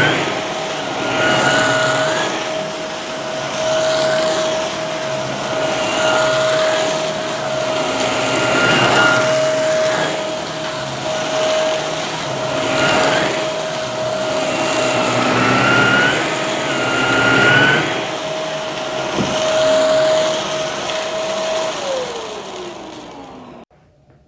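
Vacuum cleaner motor running with a steady whine, with a surging rush and short rising whistles roughly every two seconds as it is pushed over crunchy debris and sucks it up. Near the end it is switched off and the whine falls away as the motor spins down.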